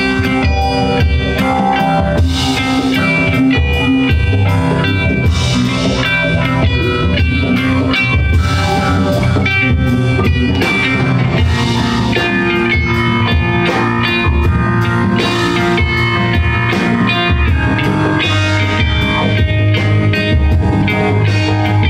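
Live rock band playing an instrumental passage: quick electric guitar lines over a bass guitar line and drum kit.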